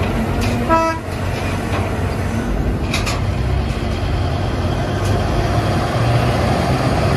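Heavy diesel machinery of a Cat mining shovel and haul truck running steadily, with one short horn toot about a second in.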